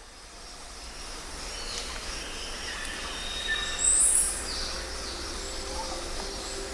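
Outdoor nature ambience: a steady background hiss that fades in at the start, with scattered bird calls and one loud high call about four seconds in.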